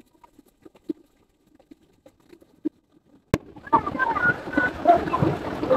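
A mountain river rushing, which cuts in suddenly about three seconds in after near quiet with a few faint ticks. Short high calls sound over the water.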